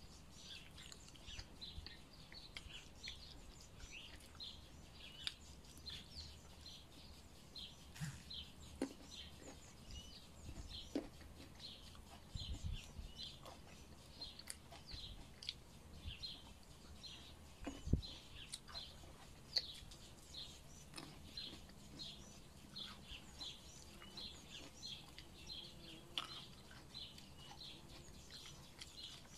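Birdsong: a bird repeating short high chirps, a few a second, without a break. Scattered soft clicks and knocks from eating at the table come through it, the sharpest about 18 seconds in.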